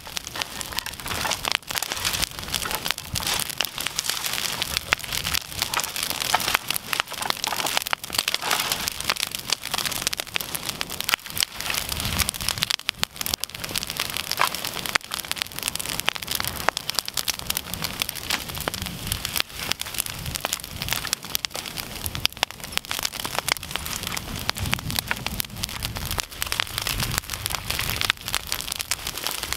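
Bonfire of brushwood and branches burning fiercely, a dense, continuous crackling and popping of burning twigs, with a low rush of flame swelling now and then.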